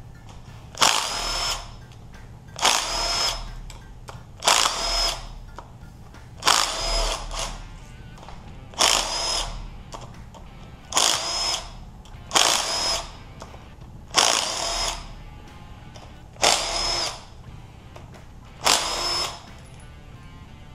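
Cordless electric impact spinning bolts out of a 6.0 LQ4 V8 engine, in about ten short bursts roughly every two seconds, each with a high whine.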